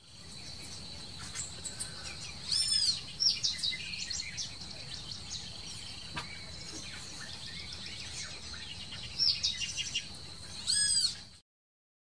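Forest ambience of wild birds: many short chirps and whistles over a steady high-pitched tone, with two louder arching calls, one about two and a half seconds in and one near the end. The sound then cuts off suddenly.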